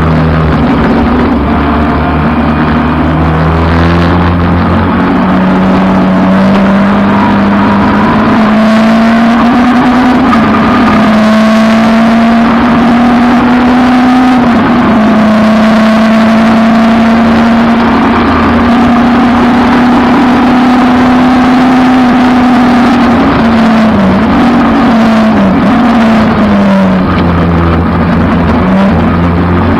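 Peugeot 306 race car's engine under hard driving. Its note climbs steadily over the first ten seconds, dips briefly a couple of times as if at gear changes, and holds high. About three-quarters of the way through it falls back with short blips, as if on downshifts.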